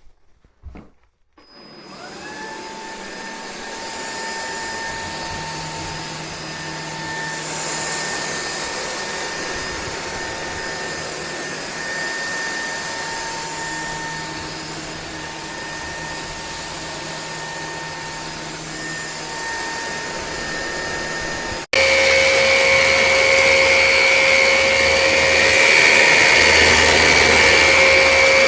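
Cordless stick vacuum clicked on and spinning up with a rising whine, then running steadily. About three-quarters of the way through it jumps abruptly to a louder run with a different pitch.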